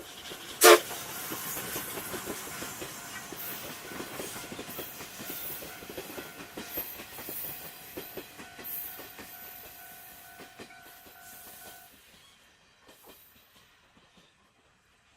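Steam train passing over a level crossing: wheels clacking in a steady rhythm over the rail joints, with hiss, after a brief loud burst about a second in; the sound fades away over the last few seconds.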